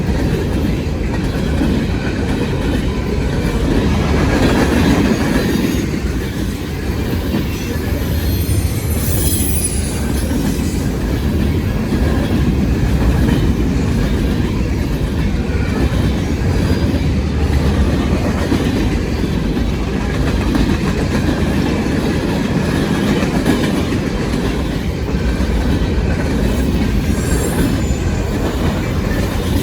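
Freight train passing close by: a steady rumble of wheels on rail with the clickety-clack of cars over the joints. Brief high-pitched wheel squeals come about nine seconds in and again near the end.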